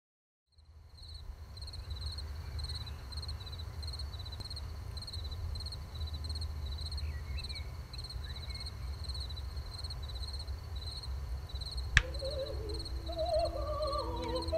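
Night ambience: a steady low rumble under insect chirping, a regular high chirp about twice a second. A single sharp click comes about twelve seconds in, and a wavering, voice-like melody begins near the end.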